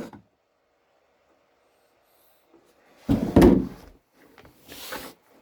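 A single loud thump about three seconds in, followed by a brief rustle, from handling tools or parts on a work surface.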